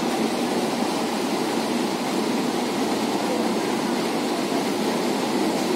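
Steady running noise inside a Kochi Metro train coach while the train is moving.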